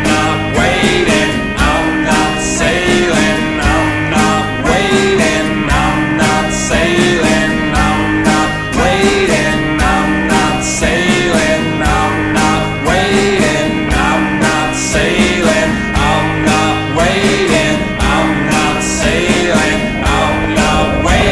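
Background song with acoustic guitar, a steady beat and singing, in a country or folk style.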